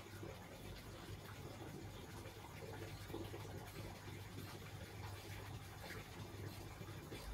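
Faint rustling and scratching of fabric being smoothed and handled by hand on a cloth-covered table, over a low steady hum.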